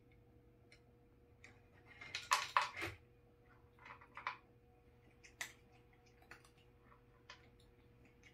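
Dry dog-food kibble clattering and clicking against the plastic of a gumball-machine-style food dispenser as a cat works its lever and eats from the tray: a loud cluster of clicks about two seconds in, a smaller one about four seconds in, then scattered single clicks.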